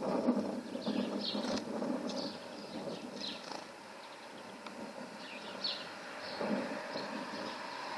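Small birds giving short, high chirps, one every second or so, over a low, uneven background rumble.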